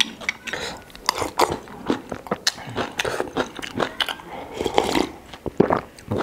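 Eating bone soup from a glass bowl: slurping sips, chewing, and a metal spoon clicking against the glass, in short irregular bursts.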